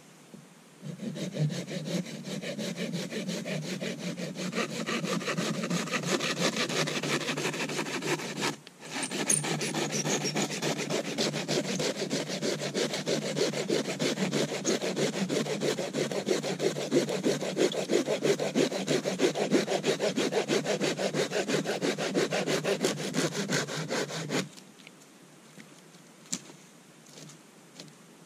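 Hand saw cutting through the trunk of a small green tree, steady back-and-forth strokes of the blade in wood. It breaks off briefly about eight seconds in, resumes a little faster, and stops a few seconds before the end.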